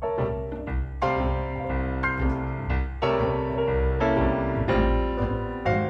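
Instrumental background music led by piano, with a low bass line underneath.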